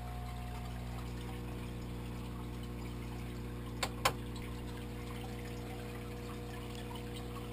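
Aquarium filter pump running with a steady hum and water moving, with two sharp clicks about four seconds in.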